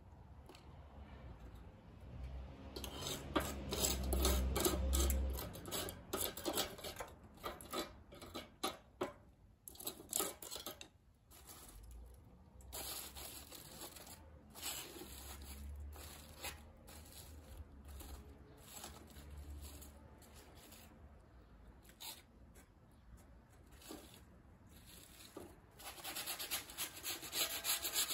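Charcoal (briquettes mixed with ogatan binchotan) lighting in a chimney starter, crackling and ticking irregularly as it catches. Gusts of wind rumble on the microphone a few seconds in and again around the middle.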